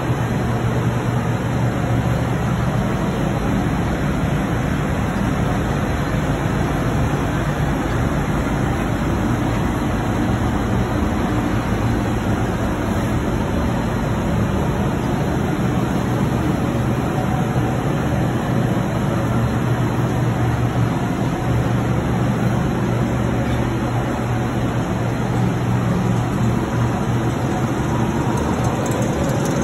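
Equipment running in a water-treatment and pump room: a steady low machine hum with a hiss over it, without any change.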